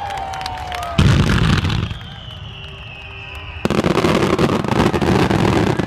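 Fireworks display: a loud burst about a second in, a high whistle falling slowly in pitch, then a long dense run of crackling bursts from past halfway to near the end.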